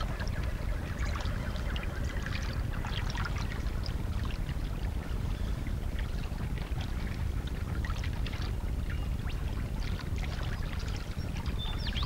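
Stream water lapping and splashing, with many small splashes from platypuses paddling and rolling at the surface over a steady low rush of flowing water.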